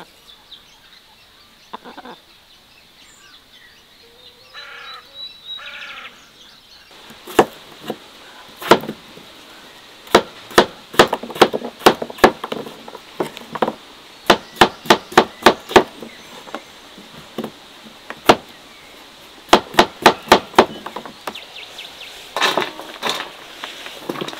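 An uneven run of sharp knocks, like chopping or tapping, that starts about seven seconds in and goes on with short pauses, often two or three strikes close together.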